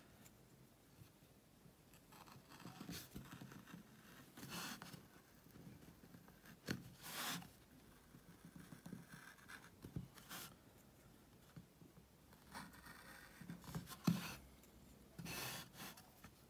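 Woodcarving gouge cutting into a limewood board: faint, irregular scraping strokes, each under a second, as the outline cut is made along the drawn lines of the design.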